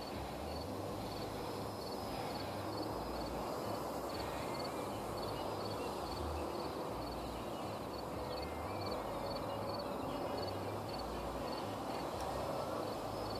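Outdoor ambience: a steady even noise, wind buffeting the microphone, and a faint high chirp repeating about twice a second throughout.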